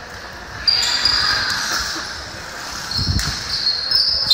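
Basketball game on court: sneakers squeaking sharply on the floor several times, with a ball thudding once about three seconds in.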